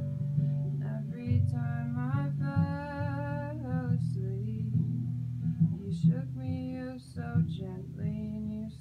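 Song played on guitar, with a voice singing over it in two phrases.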